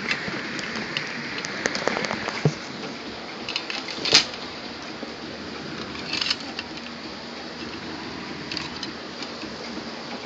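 Scattered light clicks and rustling handling noise over a steady background hiss, with one sharper click about four seconds in and a few quick ticks about two seconds later.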